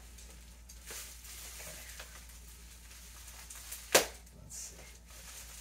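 Brown packing paper and plastic wrap rustling and crinkling as a package is unwrapped by hand, with one sharp, louder crackle about four seconds in.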